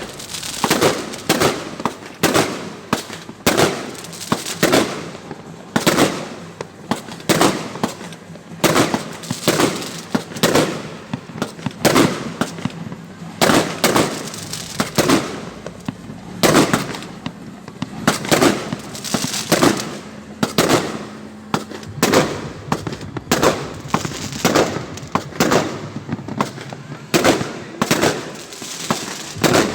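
Fireworks going off up close: a long, regular run of sharp bangs, about one or two a second.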